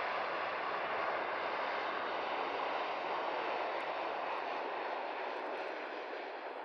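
Dash 8-400 turboprop airliner landing: a steady rushing engine and propeller noise that eases slightly near the end.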